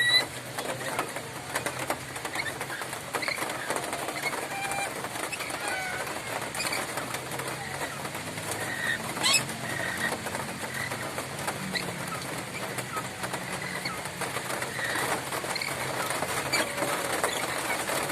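Nuri maluku lory giving short, sharp, high calls and squawks off and on, with one louder, harsher call about nine seconds in.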